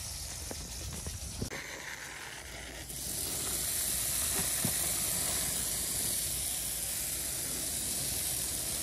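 Water spraying from a garden hose nozzle onto a car roof: a steady hiss that starts about three seconds in. Before it, a quieter stretch of hose water running over an engine block, with a few light knocks.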